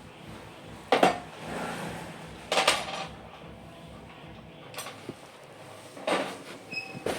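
Hard objects clattering as they are handled and set down: three sharp knocks, about a second, two and a half and six seconds in, with a few fainter clicks between.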